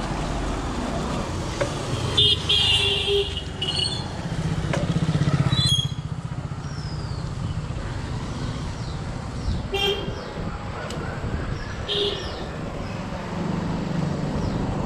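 Road traffic heard from a moving bicycle: motorcycle and car engines going by, with a steady low rumble that swells for a couple of seconds near the middle. Several short high-pitched sounds come and go, about five times.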